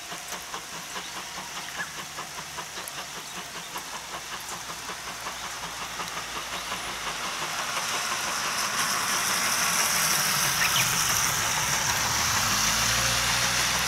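JNR C12 66 steam tank locomotive pulling away, its exhaust chuffing in a quick, even beat over a steady hiss of steam. The sound grows steadily louder as it approaches, and a low rumble joins near the end.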